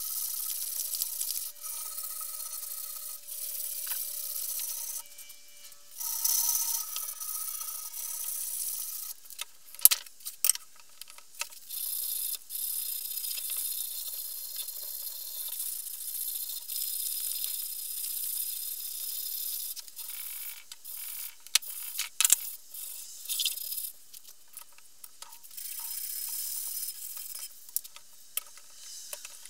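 Strip of 180-grit sandpaper pulled back and forth around a wooden axe handle, shoe-shine style: a rough, raspy hiss in runs of a few seconds with short pauses between them, and a few sharp clicks.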